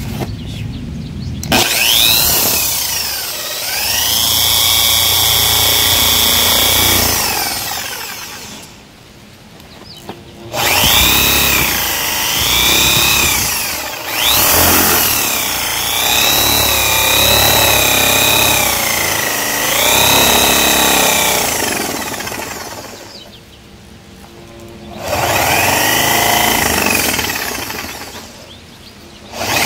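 Corded Ryu electric drill boring into wood with a 22 mm spade bit, in several runs with short pauses between them. The motor's whine rises each time the trigger is squeezed and falls as it is let go, over the grinding of the bit cutting. The bit spins with a wobble.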